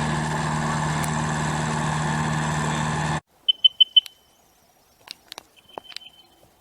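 An engine runs steadily with a low hum, then cuts off abruptly about three seconds in. A bird follows with a quick run of four high chirps and a few more scattered sharp chirps.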